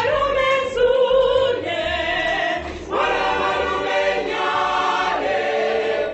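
A choir singing in held phrases, with short breaks about a second and a half and three seconds in.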